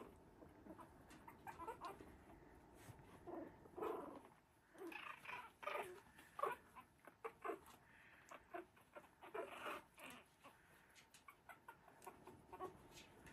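Three-week-old Havanese puppies playing and wrestling, making many short, faint squeaks and grunts scattered through.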